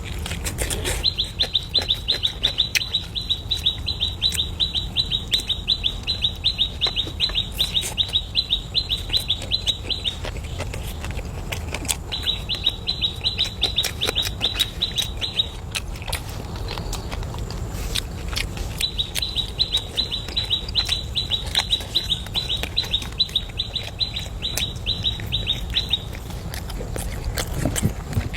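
Bird calling: a fast, even string of high chirps at one pitch, about five a second, in three long runs separated by short pauses. Scattered sharp clicks sound beneath it.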